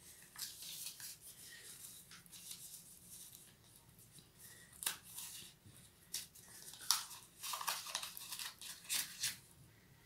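Metal knitting needles clicking and scraping against each other as stitches are worked in acrylic yarn: faint, irregular ticks and rustles, with a few sharper clicks about five seconds in and again toward the end.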